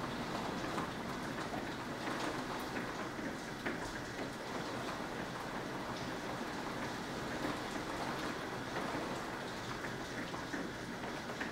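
Steady thunderstorm rain: a continuous hiss scattered with many small ticks of drops striking close by.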